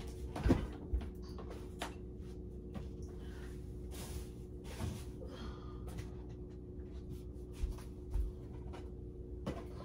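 Scattered light knocks, clicks and rustles of food containers and kitchen items being handled, the loudest knock about half a second in, over a steady low hum.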